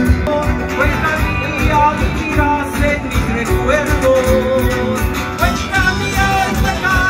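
Live Andean folk band playing, a melody with singing over a steady bass beat.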